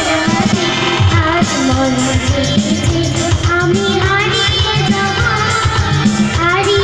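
A girl singing a song live into a microphone, amplified through PA loudspeakers, over a band accompaniment of electric guitar and a steady percussion beat.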